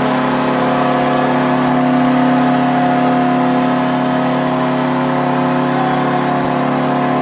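Buffalo Sabres arena goal horn blowing one long, unbroken, steady blast, marking the end of the game.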